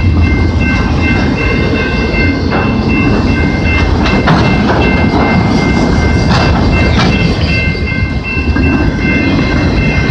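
A freight train of autorack cars rolling steadily past close by: a loud rumble of steel wheels on rail, clacking over the rail joints, with several sharp clanks. A high ringing tone pulses on and off throughout.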